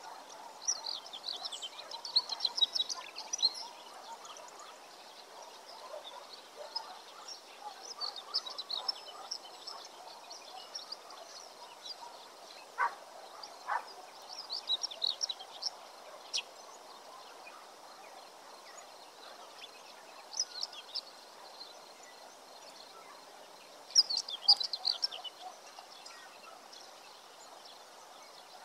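Small songbirds singing in short bursts of rapid chirps every few seconds, with two short whistled notes about halfway through, over steady outdoor background noise.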